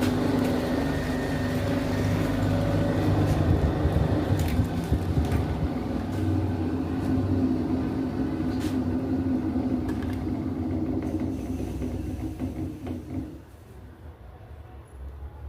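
A power tool's motor running with a steady hum and low rumble, a few short knocks over it, until it cuts out about thirteen seconds in.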